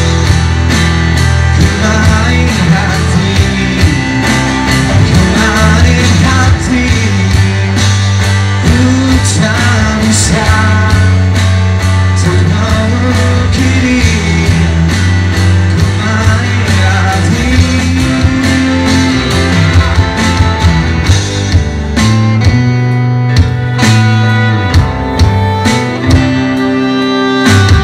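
Live band playing a pop-rock song: electric guitar over bass and drums, with a man singing part of the time.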